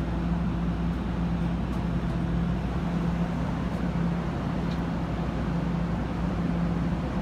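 NJ Transit multilevel passenger train moving slowly past the platform, a steady low rumble with a constant hum.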